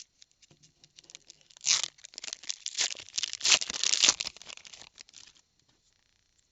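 Foil Pokémon booster pack wrapper crinkling and tearing as it is ripped open by hand, starting about a second and a half in and stopping near the end.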